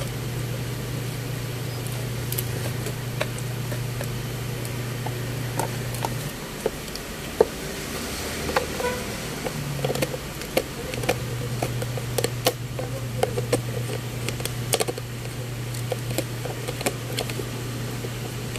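A dog gnawing a buffalo-horn chew: irregular clicks and scrapes of teeth on hard horn, thickest in the middle. Under it runs a steady low machine hum that drops and changes for a few seconds midway.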